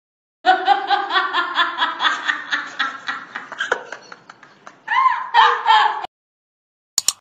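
A woman laughing hard in quick bursts that tail off, then breaking into two longer, high-pitched shrieks of laughter.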